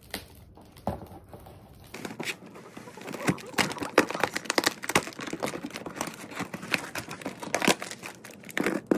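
A knife sawing and slicing through a cardboard shipping box and its tape, with crinkling and tearing of the cardboard as the box is opened. A few light knocks first, then from about two seconds in a dense, irregular run of scraping and crackling.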